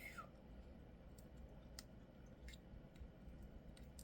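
Near silence with a few faint, scattered clicks from hands working slime and the kit's plastic pieces.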